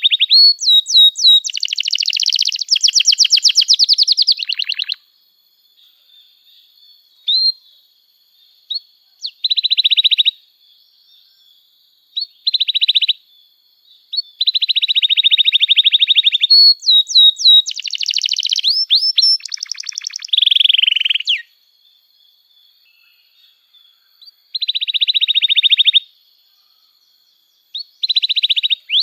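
Domestic canary singing: phrases of rapid buzzy trills and quick rising and falling whistles, broken by pauses of a second or two, with a faint steady high tone running underneath.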